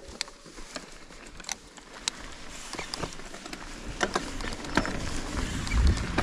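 Ibis Ripmo full-suspension mountain bike rolling down a dirt and gravel fire road: tyre noise with scattered sharp ticks from stones and the bike, growing louder as it picks up speed. A low rumble of wind on the microphone comes near the end.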